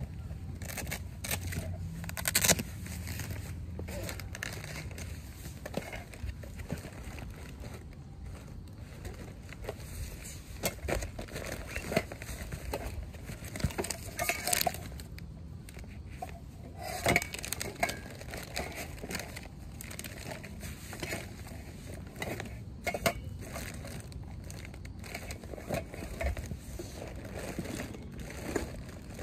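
Crinkling and rustling handling noise with scattered light clicks and knocks, loudest about two and a half seconds in and again around fourteen seconds in.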